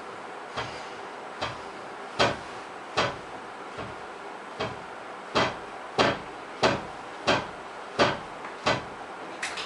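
A steady series of sharp knocks or thumps, about three every two seconds, becoming louder about two seconds in.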